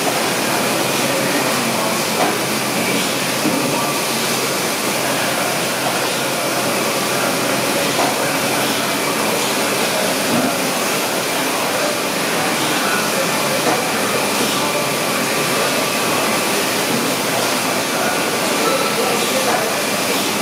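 Packaging-line machinery running steadily: belt conveyors carrying packs into a Cerberus 420 combination checkweigher, giving a constant machine noise with a faint high whine and a few light knocks.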